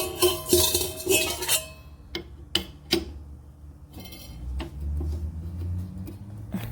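A metal stand-mixer attachment clattering and ringing against the mixer as it is fitted, followed by a few sharp clicks and then a low rumble.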